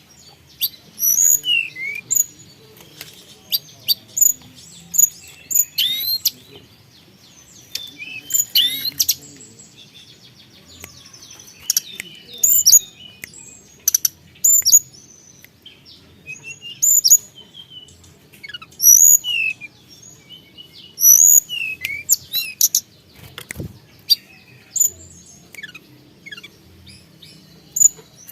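A tledekan gunung songbird singing: loud, sharp high chirps and quick up- and down-slurred whistles in bursts every second or two, with a short lull about ten seconds in.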